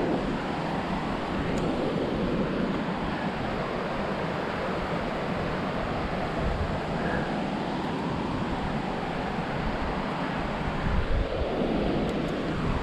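Wind buffeting the microphone of a body-worn camera: a steady rushing noise with a low rumble that rises and falls.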